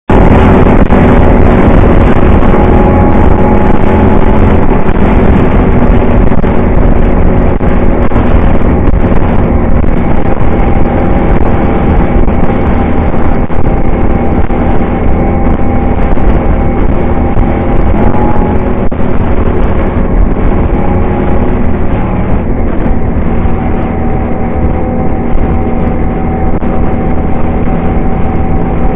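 Quad bike (ATV) engine running steadily under way at road speed, loud and close, over a constant low rumble of wind and road noise. Its pitch dips and recovers briefly about eighteen seconds in.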